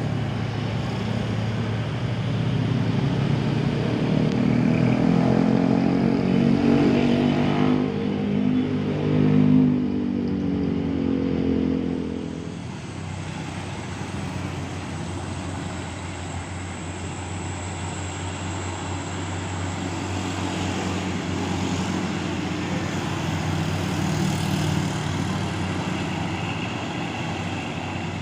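Heavy truck engine labouring up a steep climb, loud for about the first twelve seconds and then dropping away sharply, leaving quieter steady engine and traffic noise, with another engine coming up near the end.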